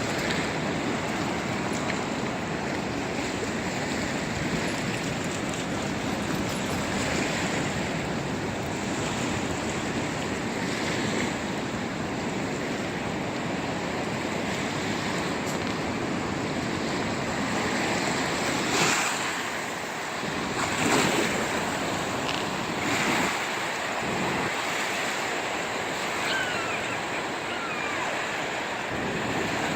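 Small ocean waves washing onto the beach in a steady rush of surf, with a few louder surges in the last third.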